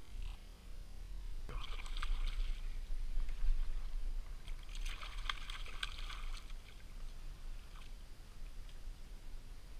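Hooked fish thrashing and splashing at the water's surface, in two bouts: one starting about a second and a half in, a louder one around five seconds in. A steady low rumble runs underneath.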